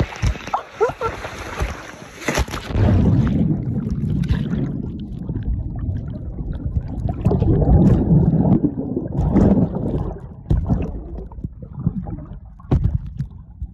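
A person shoots down a natural rock water slide into a pool: a splash about two seconds in, then loud, muffled churning and gurgling of water.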